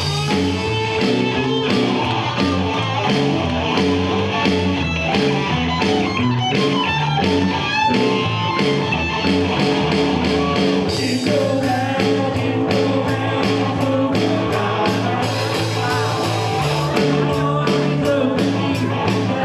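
Live band playing an upbeat rock-and-roll song, with acoustic guitar, a steady drum beat and singing.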